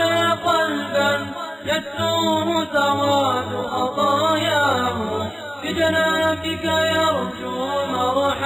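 Unaccompanied voice chanting an Arabic devotional supplication (nasheed) in long, ornamented notes that glide up and down, over a steady low drone.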